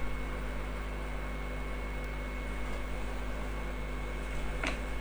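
Hot-air rework gun blowing steadily while a chip is heated off a phone's logic board: an even rushing hiss under a steady electrical hum and a thin steady whine. A couple of light clicks near the end.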